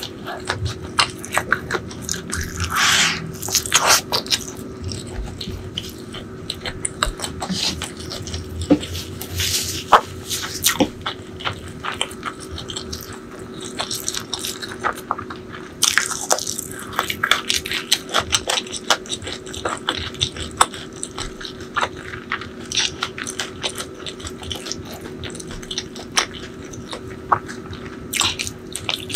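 Close-miked eating: chewing with wet mouth sounds and crunching, heard as many short clicks and crackles, over a faint steady hum.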